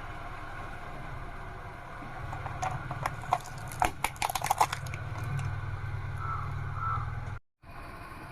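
A car engine runs low and steady. About two and a half seconds in, a quick run of sharp plastic cracks and crunches lasts roughly two seconds as a car tyre rolls over and crushes a plastic baby rattle.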